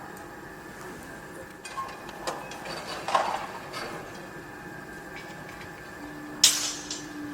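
Construction-site noise: a steady mechanical drone with scattered metallic clanks and knocks, the sharpest about six and a half seconds in. A steady low hum sets in about six seconds in.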